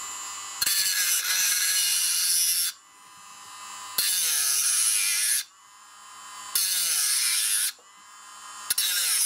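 Small hand-held rotary tool with an abrasive disc grinding the underside of a model-railway stock rail's head in four short passes, with the motor whining on its own between passes. The grinding relieves the rail head from below so that the switch blades can lie against the stock rail.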